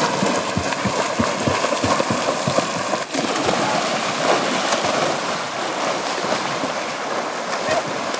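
Several people swimming and thrashing through shallow lake water: continuous splashing, with many sharp slaps of arms and hands striking the surface.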